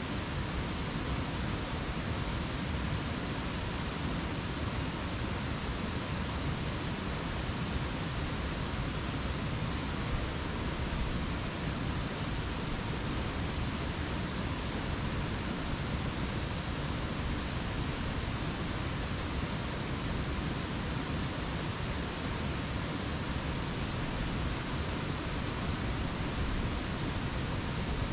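A steady, even rushing noise with a deep rumble underneath, unchanging and without distinct events.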